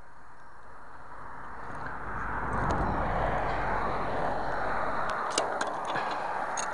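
Road vehicle passing: a rushing noise with a low rumble that swells about two seconds in and holds, with a few sharp clicks near the end.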